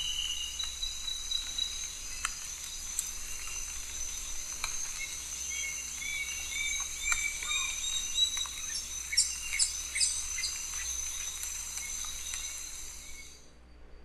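Field recording of a lanceolated monklet calling, a scatter of short whistled notes over a steady high-pitched insect chorus of tropical forest. The recording cuts off suddenly near the end.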